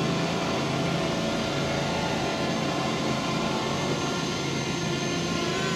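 Fimi X8 Mini quadcopter's propellers whirring steadily as it hovers and descends for a precision landing, a continuous hum made of several steady pitches over a rushing haze.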